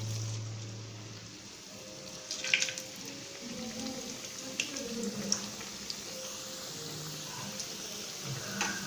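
Hot oil sizzling and bubbling steadily as stuffed somas pastries deep-fry in a pan, with a few sharp clicks about two and a half seconds in and again near the middle.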